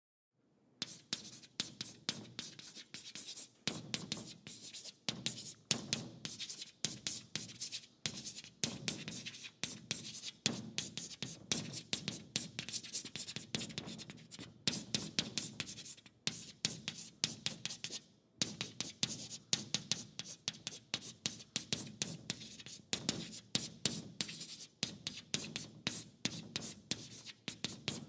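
Chalk writing on a large classroom chalkboard: quick scratchy strokes and taps of the chalk against the board in an irregular run, with a few short pauses between words.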